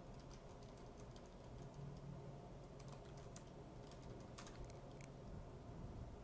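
Faint computer keyboard typing: a run of quick, irregular key clicks as a command is entered.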